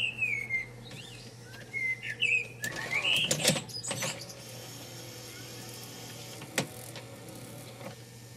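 Panasonic NV-HS900B VCR tape mechanism running, with squeaky chirps that glide up and down for the first few seconds. Then comes a cluster of mechanical clicks and clatter about three to four seconds in, and a single sharp click later, over a steady low hum.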